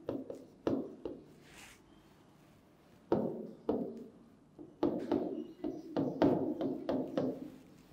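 Marker pen tapping and knocking against a whiteboard during handwriting: an irregular series of short taps, two early, then a pause, then a quicker run of them through the second half.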